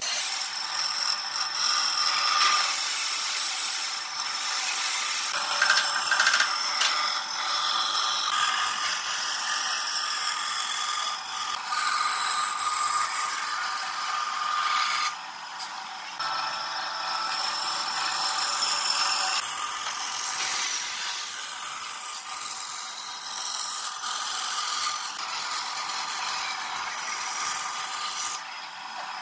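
Bandsaw cutting a curved line through a wooden board: a steady high-pitched hiss of the blade in the wood, briefly quieter about halfway through.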